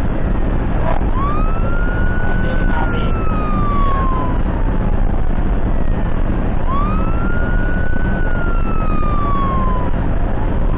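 Ambulance siren on a slow wail. In two cycles about five and a half seconds apart, it rises quickly, holds high for a moment, then glides slowly down. Under it is the steady rumble of the ambulance driving at speed.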